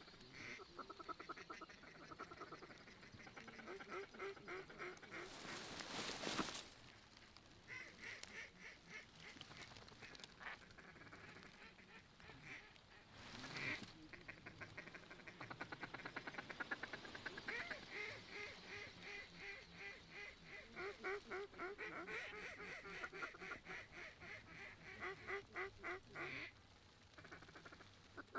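Duck quacking and chatter in long, rapid runs of short quacks, many a second, coming in repeated bouts. Two brief rushes of noise come in, about six and thirteen seconds in.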